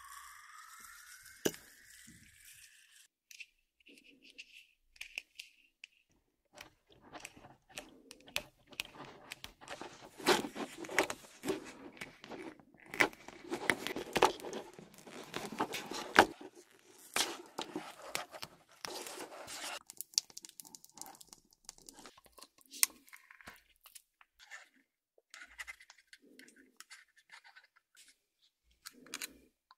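Thin clear plastic nano tape crinkling and crackling under the fingers as it is pinched around a plastic syringe. Dense crackling is loudest in the middle, with quieter scattered clicks and taps near the start and end.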